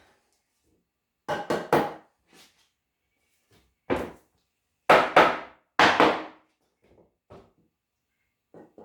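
Hammer driving nails into wooden frame boards. A quick run of blows comes first, then a single blow, then a few heavier blows around the middle, with light taps near the end.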